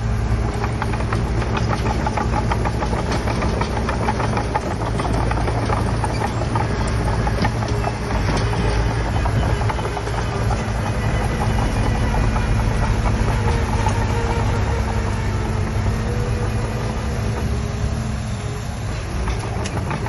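Komatsu D31P crawler bulldozer working, its diesel engine running steadily under dense, rapid metallic clanking from the tracks.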